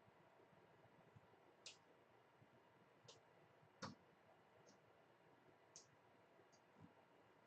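Near silence broken by about six faint, sharp, high clicks at irregular intervals, from small tools touching the board during microsoldering.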